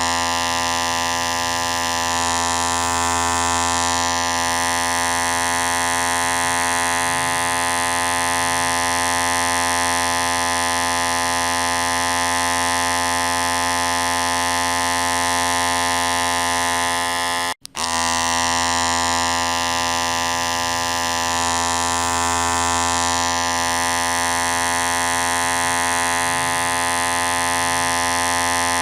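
Electric hair clipper running with a steady, loud buzz. It cuts out for a split second about two-thirds of the way through and starts again at the same pitch.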